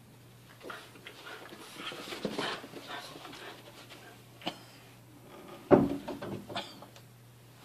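Two dogs play-fighting: a run of short breathy dog noises for the first few seconds, then a sharp knock about four and a half seconds in and a loud thump near six seconds in.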